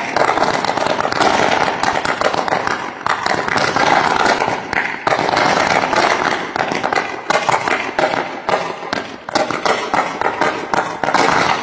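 Electrical arcing from a live power cable lying on the street as it burns and throws sparks: continuous rapid crackling and popping, uneven in strength.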